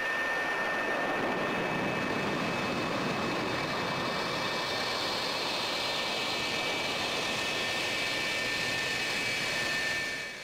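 F-4 Phantom II's twin J79 turbojets running at taxi power: a steady high whine over a rush of jet noise, fading near the end.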